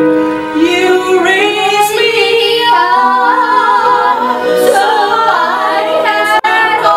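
Several women singing together in parts with a wide vibrato, over sustained keyboard notes.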